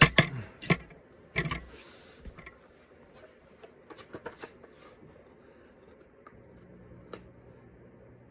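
A clamp being taken off a skateboard deck after a wood-glue chip repair: a burst of knocks and clatter in the first two seconds, then a few light clicks as the board is handled.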